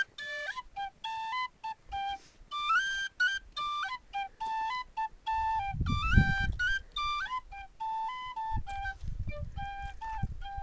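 A tin whistle playing a lively tune in quick, separate notes that step up and down. A low rumble comes in under the tune about five seconds in and again near the end.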